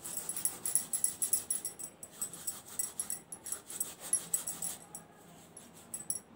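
Dried fenugreek leaves (kasuri methi) crackling as they are crushed and rubbed between the palms, with the bangles on the wrist clinking in quick succession. The rustling clicks come thick and fast, then thin out to a few near the end.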